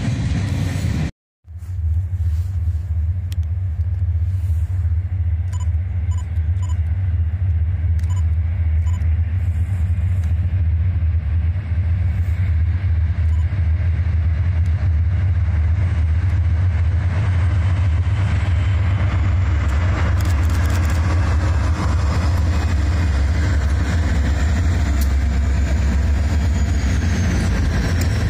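Freight train led by diesel locomotives approaching and passing close by, a steady low rumble that grows fuller and louder about two-thirds of the way through as the locomotives and then the freight cars roll past. A few faint high dings come a few seconds in.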